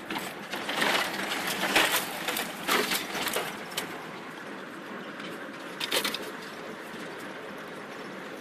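Scrub branches and leaves scraping and crackling against the body of a Toyota Land Cruiser as it pushes along a narrow bush track, in several bursts over the first four seconds and once more briefly around six seconds. Under it the vehicle runs steadily, heard from inside the cab.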